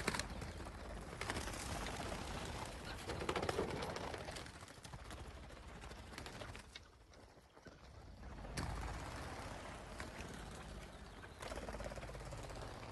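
Chukar partridges calling, with scattered rustling and knocks.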